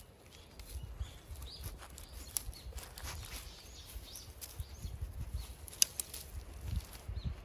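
Footsteps rustling and crunching through forest undergrowth, with irregular thumps and sharp twig-like snaps. Faint bird chirps sound in the background.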